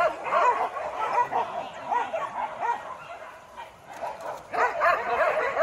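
Hunting dogs yelping and barking in quick, high-pitched bursts, easing off for a moment around the middle and then picking up again.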